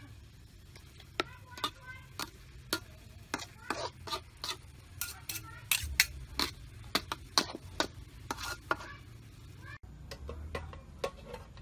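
Metal spatula and spoon scraping and clanking against a steel wok while stir-frying shredded ginger, an irregular run of sharp clinks, several a second. The clinks thin out near the end.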